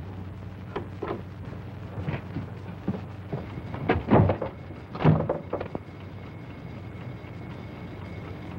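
A door being shut, with two heavy thuds about four and five seconds in and a few lighter knocks before them, over the steady hum of a 1930s film soundtrack.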